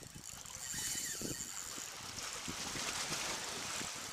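Sea water washing against the rocks of a breakwater: a hiss that swells about a second in and eases off near the end, with a few low knocks.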